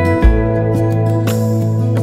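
Background music: a gentle, guitar-led instrumental passage over held chords, with a low drum hit about a quarter of a second in.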